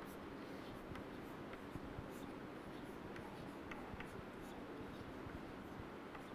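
Chalk writing on a chalkboard: faint scratching with scattered light taps of the chalk against the board, over a low steady room hum.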